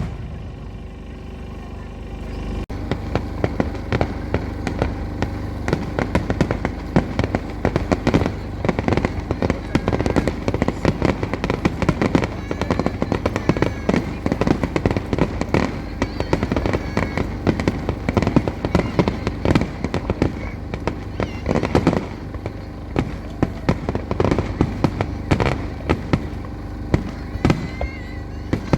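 Fireworks display going off: a dense, continuous rapid crackle of many small bursts, beginning about three seconds in after a short quieter moment.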